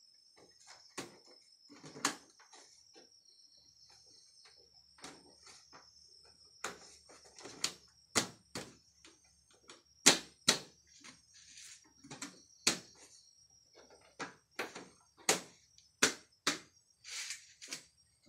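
Plastic side fairing panels of a Kawasaki Ninja 250 FI being handled and pressed into place on the bike: irregular sharp plastic clicks and knocks, sparse at first and coming thicker and louder in the second half.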